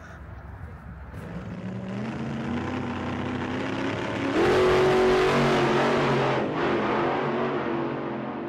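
Race cars passing at speed along the trackside fence: the engine noise builds and rises in pitch for a few seconds, is loudest about four and a half seconds in, then eases off as they go by.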